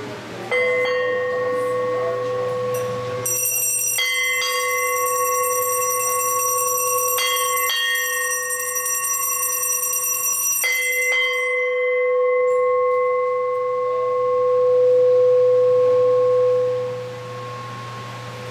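Temple bells ringing. A deep bell is struck once, then in quick pairs about every three seconds, and its tone rings on, swelling before it fades near the end. Over the middle stretch a higher, brighter bell rings steadily.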